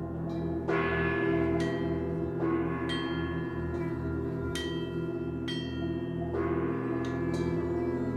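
Gamelan-style tuned gongs and kettle gongs struck about once a second, each stroke ringing on, over a low drone that pulses slowly.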